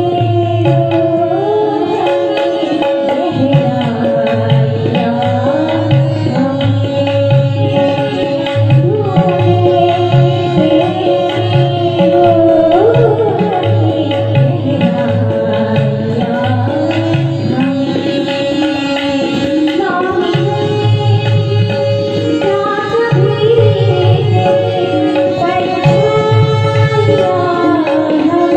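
A woman singing a Hindi song with tabla and harmonium accompaniment: the tabla keeps a continuous rhythm while the harmonium holds a steady note under her voice.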